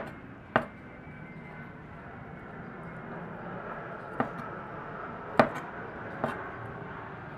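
Chef's knife cutting cooked shrimp on a cutting board: about five sharp, irregularly spaced knocks of the blade striking the board. The loudest comes right at the start, and the others fall about half a second in and then roughly four, five and a half, and six seconds in.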